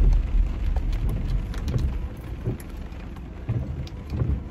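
Rain pattering on a car, heard from inside the cabin as many scattered light ticks over a steady hiss. Under it is a low rumble that eases off about halfway through.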